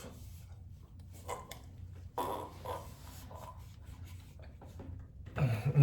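Fabric rustling and rubbing as a person pulls on a layer of clothing, in irregular short scrapes.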